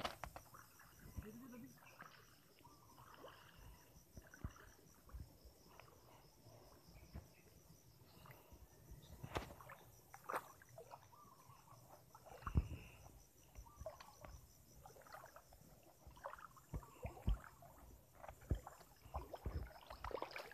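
Footsteps wading and splashing through a shallow stream, with rustling of plants and a few louder splashes. A faint, high, evenly pulsed chirring runs in the background.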